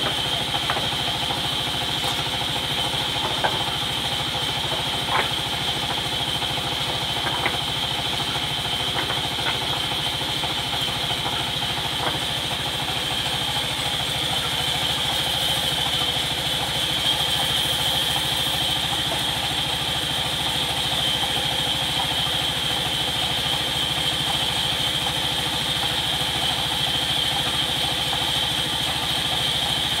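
Sawmill band saw running steadily, its blade cutting lengthwise through a teak log: a constant high whine over the machine's steady hum, with a few faint knocks in the first half.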